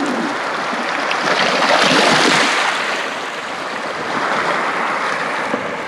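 Small waves of Lake Superior lapping and washing onto a sandy beach, a steady wash that swells louder a couple of times.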